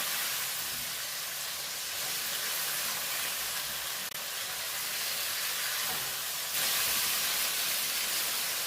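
Chicken pieces frying in hot oil, a steady sizzle, browning towards golden. The sizzle grows a little louder about two-thirds of the way through.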